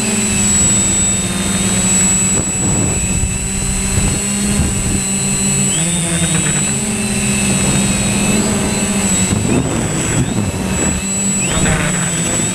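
Quadcopter drone's propellers buzzing steadily, the pitch stepping up and down as the motors change speed, with a high steady whine and a rough low rumble underneath.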